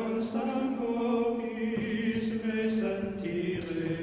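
Slow sung chant in a low male vocal range, with long held notes that step from one pitch to another and soft hissed consonants between phrases.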